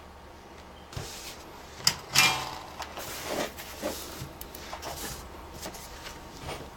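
Light clicks, knocks and rustles of hands working tools and small parts at a soldering bench, with the loudest a brief noisy scrape about two seconds in.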